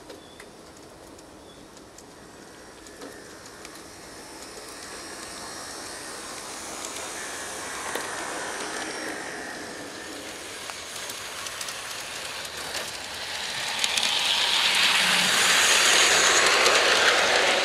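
G scale model train cars rolling along the garden track, a steady rumble of wheels on rail with light clicks over the rail joints, growing louder as the cars pass close by and loudest near the end.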